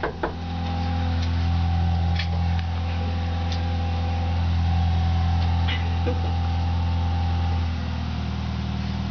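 A steady low mechanical drone, like a motor or engine running nearby, holding one pitch and dropping slightly about eight seconds in. A couple of sharp clicks at the start.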